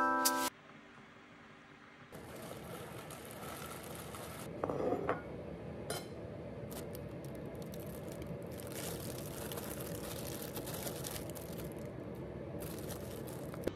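Kitchen food-prep sounds: hands handling mushrooms on a ceramic plate, with light clinks and taps, over a steady hiss and hum. The steady background starts about two seconds in, after a brief quiet gap.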